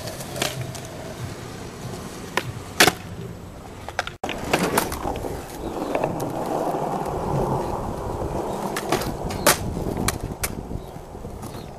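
Skateboard wheels rolling on concrete, broken by several sharp clacks of the board popping and landing. After a brief dropout about four seconds in, a louder steady rasp of the board rolling and grinding along a low metal rail, with more clacks near the end.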